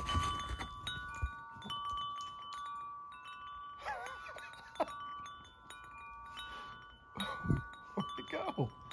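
Clear, bell-like ringing tones, several notes sounding at different moments and overlapping as they die away, with a few brief rustling sounds about four seconds in and again near the end.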